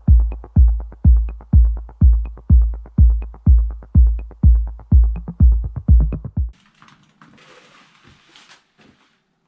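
Electronic music with a steady four-on-the-floor kick drum, about two deep beats a second, that cuts off abruptly about six and a half seconds in. Faint scraping and handling noise follows.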